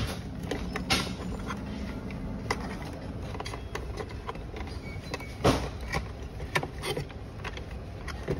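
Plastic clicks, knocks and rattles as the faceplate of a wall-mounted room pressure monitor is pulled off its installation box and handled, with wires pushed into the wall box. The louder clicks come about a second in and about five and a half seconds in, over a steady low hum.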